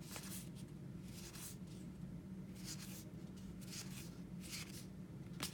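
Baseball cards being handled and flipped through by hand: soft, brief swishes of card stock sliding against card stock, about eight of them spread unevenly, over a low steady hum.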